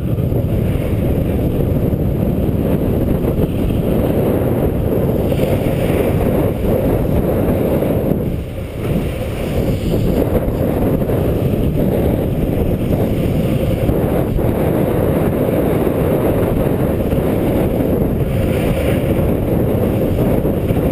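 Loud, steady wind rumble buffeting the microphone of a rider sliding fast down a snowy slope, with the scrape of sliding over the snow underneath. It eases briefly about eight and a half seconds in.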